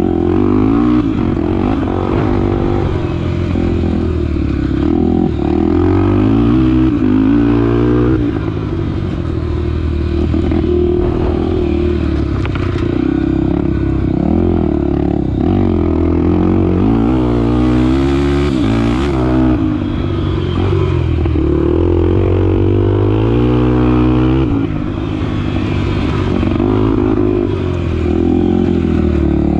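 Honda Tornado 250's single-cylinder four-stroke engine running under a rider, revving up and easing off again and again, its pitch rising and falling with throttle and gear changes.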